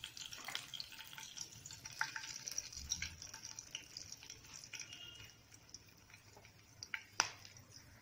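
Whole garam masala spices sizzling and crackling faintly in a little hot oil in a nonstick kadai, with many small ticks over a light hiss. The sizzle fades about five seconds in, and two sharper ticks come about seven seconds in.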